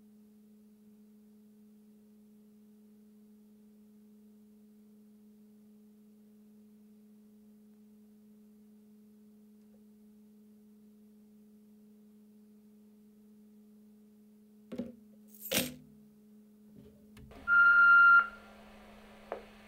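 A faint, steady low electrical hum. About fifteen seconds in come two short knocks, and near the end a single loud electronic beep lasting about a second.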